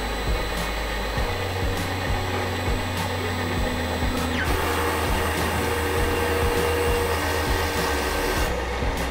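Procolored F13 Pro DTF printer running a printhead cleaning cycle: a steady mechanical whir of its motors and ink pump with occasional clicks. The whir grows louder and hissier about halfway through and eases off shortly before the end.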